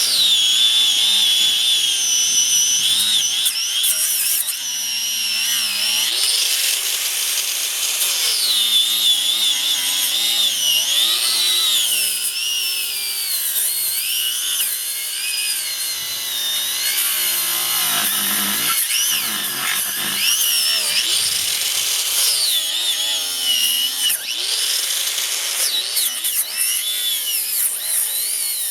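Craftsman angle grinder with an abrasive cut-off wheel cutting through a tire; its high whine wavers up and down in pitch as the wheel bogs and frees in the rubber.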